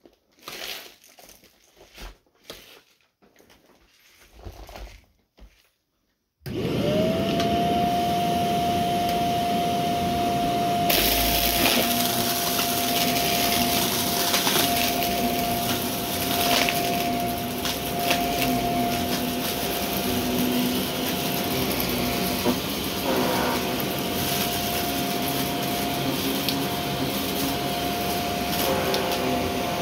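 Shark Navigator upright vacuum cleaner switched on about six seconds in, after a few faint knocks. Its motor spins up within a second to a steady high whine and keeps running. From about eleven seconds in a brighter hiss with scattered crackles joins it.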